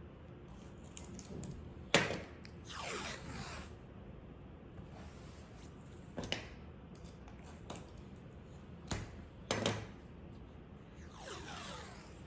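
Decorative masking tape being handled: a few sharp clicks and taps, and twice a longer rasping pull of tape peeling off the roll.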